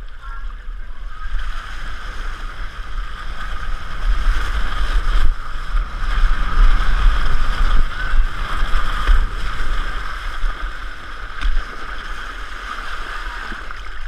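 Wind buffeting the microphone over a steady rush and hiss of water as a foam mat skims fast down a water slide. It is loudest midway down and eases off in the last few seconds as the mat slows in the run-out.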